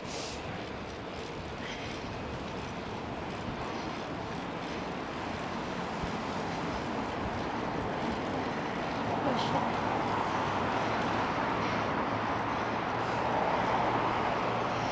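Steady rush of wind and road noise while riding a bicycle at speed through city traffic, growing louder from about eight seconds in as cars pass alongside.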